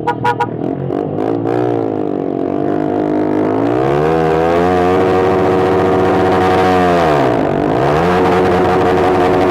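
Engine blipped and revved through a Pro Liner aftermarket muffler with its dB killer removed, so the exhaust is loud and unbaffled. The revs climb, hold high, drop briefly near the end and climb again. A few sharp clicks sound right at the start.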